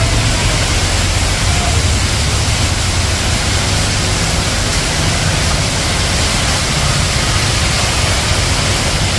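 Heavy rain pouring down in a steady, loud hiss, with a low rumble underneath.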